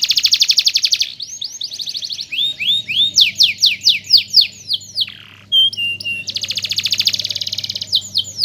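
Domestic canary singing a long, varied song: a very rapid trill of repeated notes, then runs of sweeping notes at a few per second, a couple of short held notes, and another rapid trill about six seconds in.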